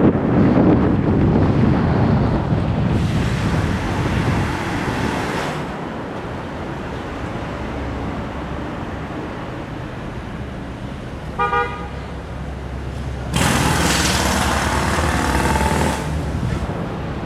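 Wind buffeting the microphone over street traffic noise during an electric scooter ride. A single short horn toot sounds about eleven seconds in, and a loud rushing hiss follows for about three seconds.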